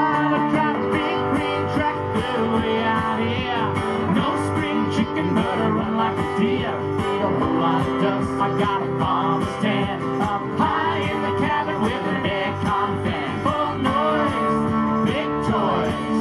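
Live country band playing an instrumental break: strummed acoustic guitars and electric bass under a lead melody that bends in pitch.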